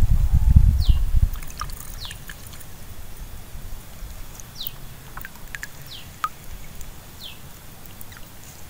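A bird repeating a short high whistle that slides down in pitch, roughly once every one to two seconds. A low rumble fills the first second, and there are a few faint clicks.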